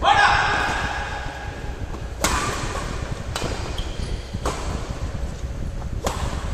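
Badminton rackets hitting a shuttlecock back and forth in a doubles rally: five sharp smacks about one to two seconds apart, each echoing briefly in the hall.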